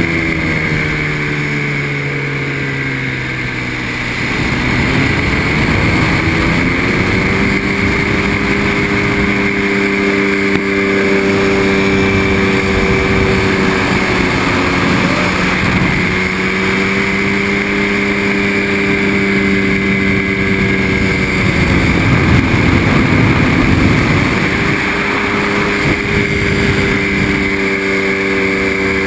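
The engine of a motorized hang-glider trike running in flight: its pitch falls over the first few seconds, rises again about five seconds in and then holds steady. Wind rushes over the microphone, swelling now and then.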